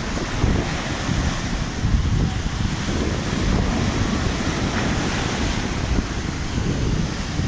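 Wind buffeting the microphone: a steady, gusty rumble with a fainter hiss above it.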